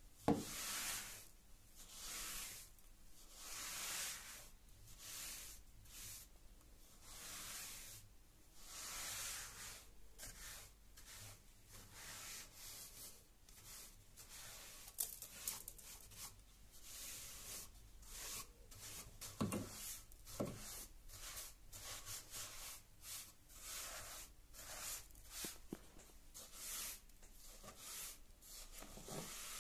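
Soft paint brush sweeping dust and debris across a stair tread: repeated bristly swishing strokes every second or two, with a few light knocks near the start, about two-thirds of the way through and near the end.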